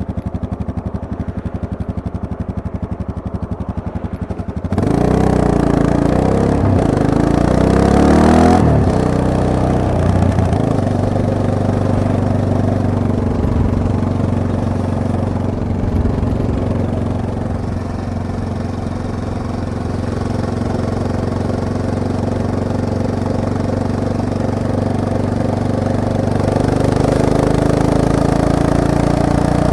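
Yamaha MT-03 motorcycle engine idling with an even pulse. About five seconds in it gets suddenly louder and the revs climb as the bike pulls away, then it settles into steady running and picks up again near the end.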